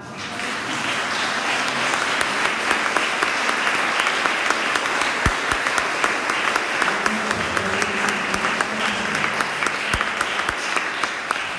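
Audience applauding: dense, steady clapping that starts suddenly and eases slightly near the end.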